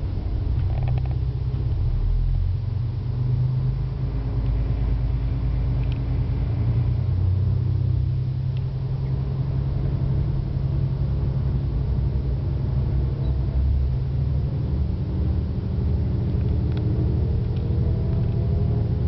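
KTR001 series diesel railcar's engine rumbling steadily as the train pulls away and gathers speed, heard from inside the front of the train. A faint rising whine joins in near the end as it speeds up.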